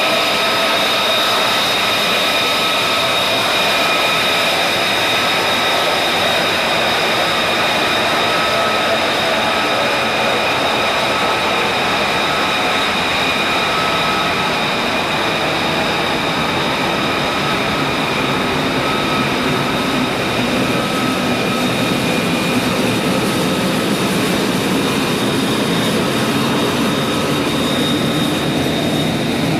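F-35B Lightning II's Pratt & Whitney F135 jet engine running on deck: a steady loud rush with a high whine over it, and a deeper rumble building in the second half.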